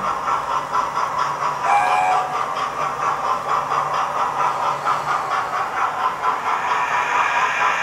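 Hornby model steam trains running: the locomotive's digital (DCC) steam sound chuffing steadily over the running of wheels on the track. A brief pitched tone sounds about two seconds in.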